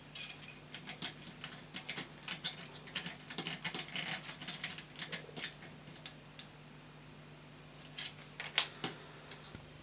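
Small clicks and light scrapes of tweezers and a tiny cap head bolt being worked into a 3D-printed plastic model chassis, with one sharper click near the end.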